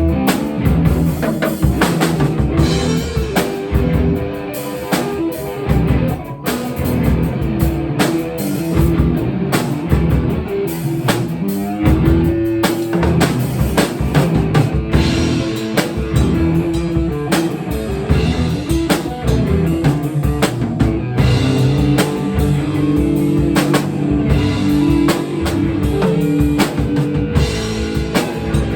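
Rock music played on a drum kit with guitar, the drums keeping a dense, steady beat.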